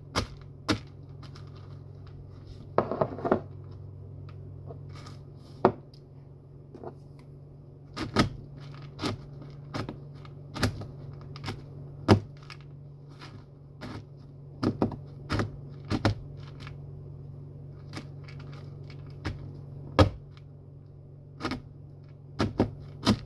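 Dry cat food being pounded by hand to crush it: irregular sharp knocks, some much louder than others, over a steady low hum.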